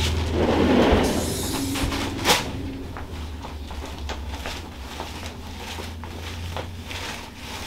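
Rustling of body movement during a slow shoulder stretch, then one sharp loud click about two seconds in, with a few faint ticks after it over a low steady hum.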